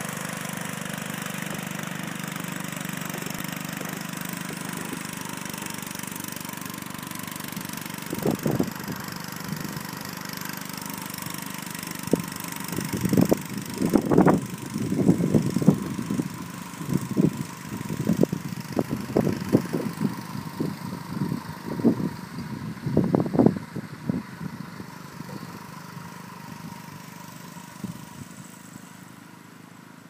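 An engine running steadily, with a run of irregular short loud knocks or bursts through the middle, and the sound fading near the end.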